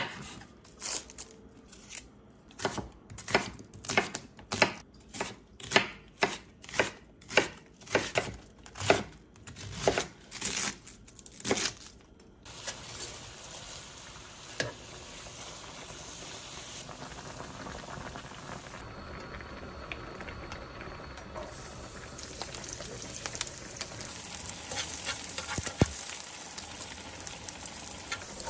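Kitchen knife chopping an onion on a wooden cutting board, about a stroke and a half per second, stopping about twelve seconds in. Then comes the steady bubbling of a pot of water at the boil as spaghetti goes in. Near the end the hiss of sliced garlic sizzling in hot oil in a frying pan takes over.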